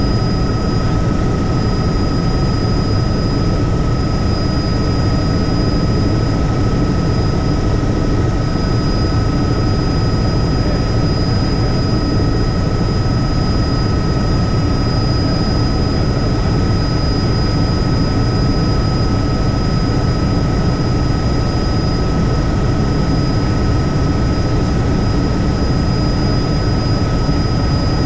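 Helicopter in flight, its engine and rotor running steadily, with a steady high whine held above the rotor noise.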